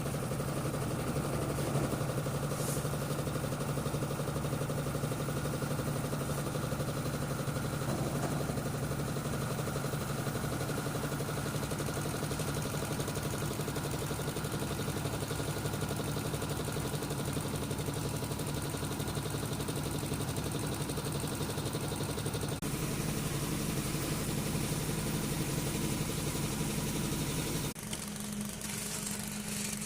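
A construction machine's engine running steadily. The sound changes abruptly about 23 seconds in and gets a little quieter near the end.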